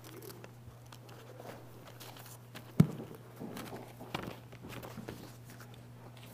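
Footsteps and small knocks of people moving about in the room, with one sharp knock a little under three seconds in, over a steady low hum.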